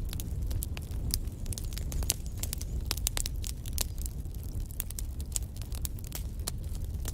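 Fireplace fire crackling: many irregular sharp snaps and pops over a steady low rumble.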